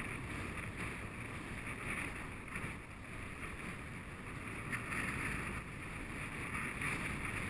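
Steady wind buffeting the microphone over the wash of open sea water.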